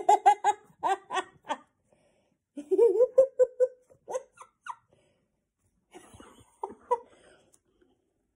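A child laughing in three bouts of quick repeated ha-ha pulses, the middle one the longest.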